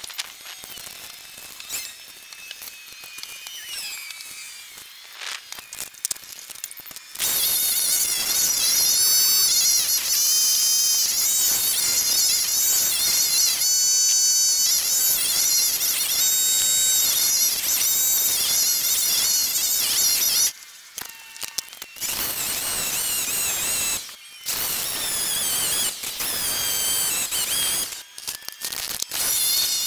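Small petrol engines of a lawn mower and line trimmer, sped up into a high-pitched buzzing whine that rises and falls. It is quieter for the first several seconds, loudest from about a quarter of the way in to past the middle, then cuts in and out near the end.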